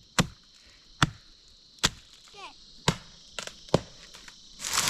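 Repeated chopping with a blade: six sharp strikes, about one a second, the last few closer together, over a steady high hiss.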